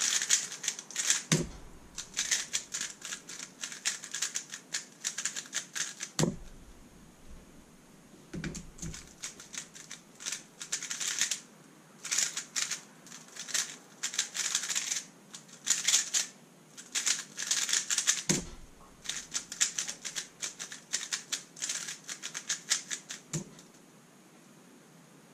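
Thunderclap v3 M 3x3 speedcube being turned fast, a rapid plastic clicking and clacking in bursts with short pauses, broken by a few dull thumps against the desk or timer. The turning stops near the end.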